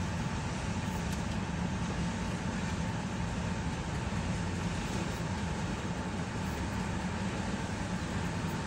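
Freight train cars (boxcars and covered hoppers) rolling past, a steady, even rumble of wheels on rail.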